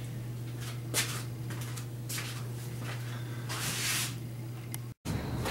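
Room tone: a steady low electrical hum with a few soft rustles and a light click about a second in. The sound drops out for an instant near the end, at an edit.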